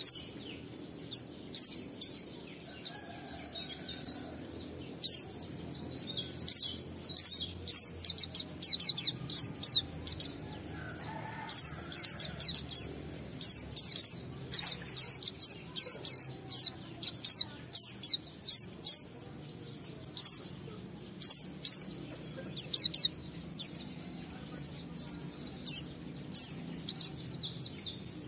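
White-eye (pleci) singing in the ngalas style: quick runs of short, sharp, high-pitched chirps in clusters, broken by brief pauses.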